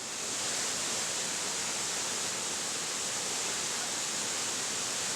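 Waterfall pouring steadily into a swimming hole: an even, unbroken rushing hiss, strongest in the high range.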